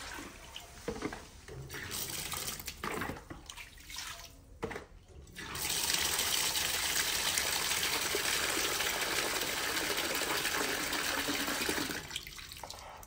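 Irregular splashes and knocks as water is tipped out of a plastic basin. About six seconds in, a tap starts running steadily into the basin, filling it, then is shut off abruptly near the end.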